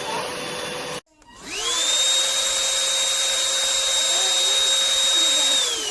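Cordless stick vacuum motor (Rowenta XPert 6.60): a steady whine cuts off abruptly about a second in. The motor then spins up, its whine rising to a steady high pitch within about a second, runs steadily, and begins winding down with a falling pitch near the end.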